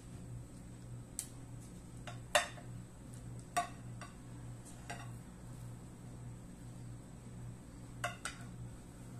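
Chef's knife cutting through bread dough, its blade clicking against a glazed plate: several sharp, irregular clicks from about one to five seconds in, and a quick pair near the end, over a low steady hum.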